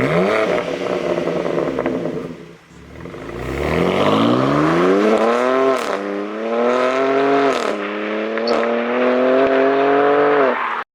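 BMW M4 G82's twin-turbo straight-six through an aftermarket RES cat-back exhaust, pulling hard under acceleration. The revs ease off about two and a half seconds in, climb steadily, drop sharply at an upshift about six seconds in and again at another shift under two seconds later, then hold nearly steady before the sound cuts off suddenly.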